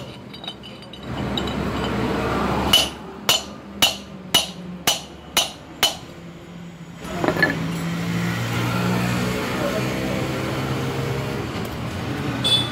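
Hammer blows on a steel drift set in the hub of a car's rear brake drum, about seven sharp metallic strikes at roughly two a second, knocking at the wheel bearing during a bearing change. Low voices follow in the second half.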